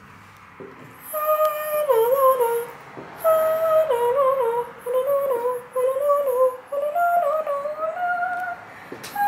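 A woman's voice humming a wordless tune, one melodic line that slides up and down, with a short break about three seconds in and stopping shortly before the end.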